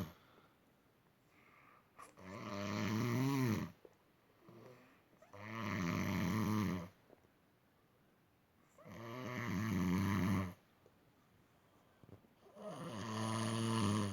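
A person snoring loudly and regularly: four long snores about three and a half seconds apart, each lasting about a second and a half.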